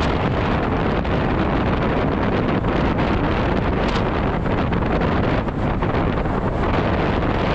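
Wind rushing and buffeting over an action camera's microphone on an electric scooter ridden at speed. It is a steady, dense rumble with no motor tone standing out.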